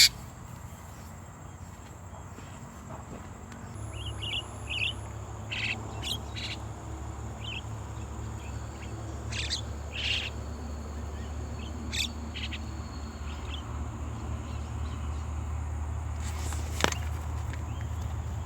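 Short bird chirps, scattered singly and in small clusters, over a low steady rumble that starts about four seconds in, with one sharp click near the end.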